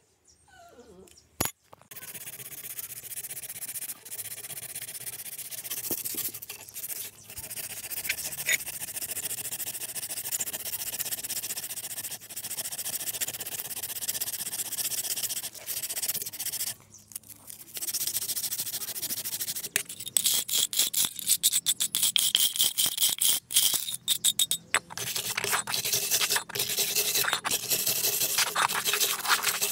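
Hand wire brush scrubbing rust off small metal parts, a steady rasp at first. After a short break at about 17 s come quick back-and-forth strokes, the loudest part.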